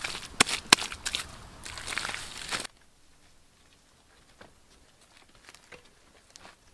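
Wet clay mud being grabbed and packed onto a wooden stick frame, with sharp wet slaps and squelches for about the first three seconds. It then cuts abruptly to quiet, with only a few faint taps and soft bare footsteps.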